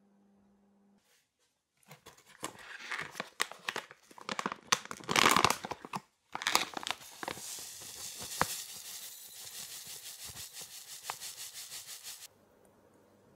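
A plastic pouch of coconut sugar crinkling as it is handled and torn open, then coconut sugar poured from the pouch into a glass bowl in a steady hissing stream that stops suddenly near the end.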